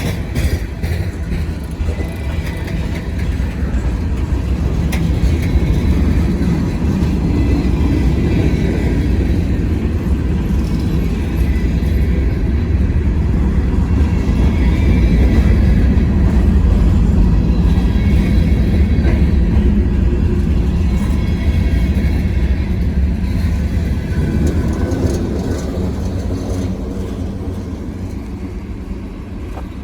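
Long mixed freight train's cars rolling past on the rails: a steady heavy rumble of wheels on track. It builds toward the middle and eases off near the end.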